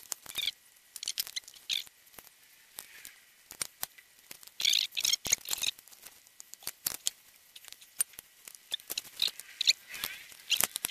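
Scattered small clicks and taps of hand tools and metal parts being handled while a bucking spike is fitted to a chainsaw, with a few short bursts of high, squeaky chirping.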